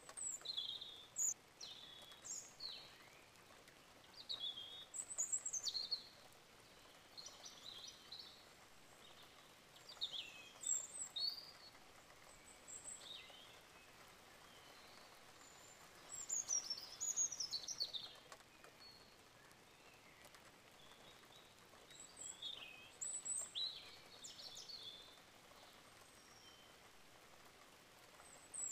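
Songbirds chirping and singing: short high chirps and quick falling whistled notes in clusters every few seconds, over a faint steady hiss.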